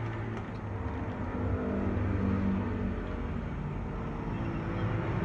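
A motor vehicle engine running with a low, steady hum, swelling louder about two seconds in.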